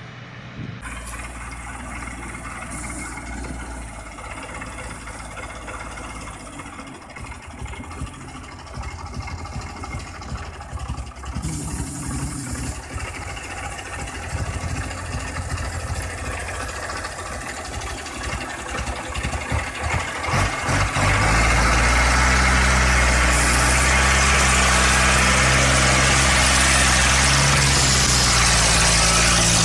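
Heavy cab-over 4x4 truck engine labouring as the loaded truck drives through deep mud. The sound grows much louder and steadier about two-thirds of the way in, as the truck comes close.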